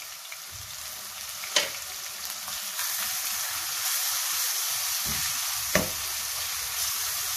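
Chopped garlic, ginger and green chillies sizzling in hot oil in a nonstick kadai as a spatula stirs them: a tempering being fried to cook off its raw taste. A steady frying hiss that swells slightly after a couple of seconds, with two sharp clicks, about a second and a half in and again near the end.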